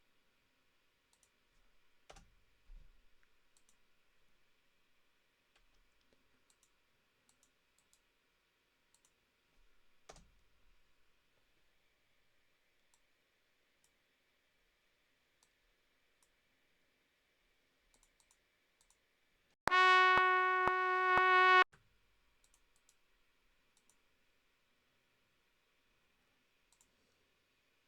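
Scattered faint computer mouse clicks, then about two-thirds of the way in a synthesizer from a DAW sounds one steady note for about two seconds, re-struck four times at an even pace.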